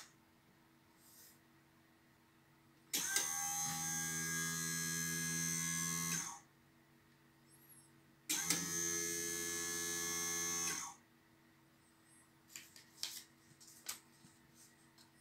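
Electric bobbin winder's small motor running twice, a steady whir of about three seconds and then about two and a half seconds, each starting and stopping abruptly. Near the end, light crackles and clicks as a paper shipping label is handled.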